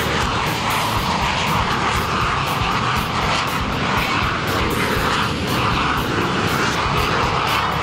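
Canadair CT-114 Tutor jet trainers on their takeoff roll, one after another, their single J85 turbojets running loud and steady with a high whine.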